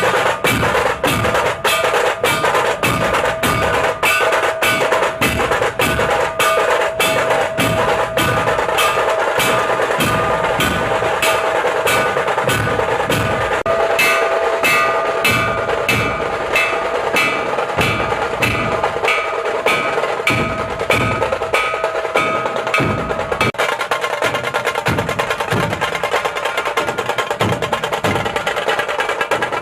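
Background music with a fast, steady percussion beat over sustained tones; the beat changes pattern about two-thirds of the way through.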